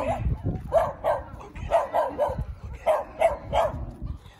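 A dog barking repeatedly, in quick runs of two or three barks about a second apart.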